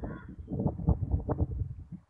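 Low, uneven rumbling buffeting on the camera's microphone, the kind wind or handling makes, fading out near the end.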